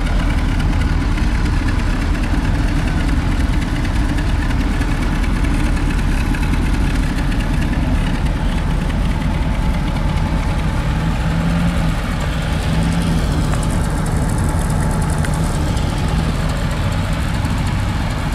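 1980 VAZ 2101's inline-four petrol engine idling steadily, heard from the rear of the car by its single exhaust pipe.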